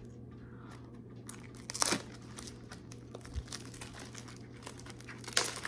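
Crinkling and tearing of packaging wrap as a blind box is opened by hand, in a run of short crackles with louder rips about two seconds in and near the end.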